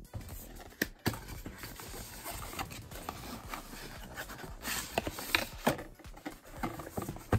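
A cardboard product box being opened by hand: irregular scraping, rustling and sharp clicks of the packaging.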